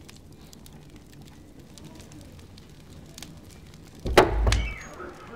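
Wood fire crackling, with scattered sharp pops over a low steady rumble; about four seconds in, a single loud thud breaks in.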